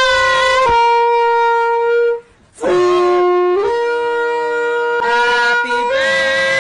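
Saxophone played in long, held notes with a few steps in pitch and a short break about two seconds in. This is the crude, unskilled playing that is mocked as "Paranran", not the quality sound of a trained saxophonist.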